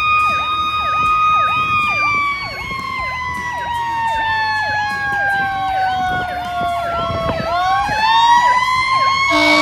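Fire engine's sirens going together. An electronic siren yelps in fast sweeps, while a steady siren wail slowly drops in pitch as it winds down and then rises again as it spins back up. A low air horn blast starts near the end.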